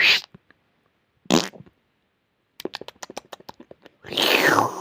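A person's snoring noises: a short snort about a second in, a quick sputtering flutter of pulses, then a long rasping snore toward the end.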